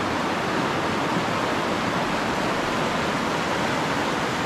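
A shallow river running fast over rocks: the steady, even rush of whitewater rapids.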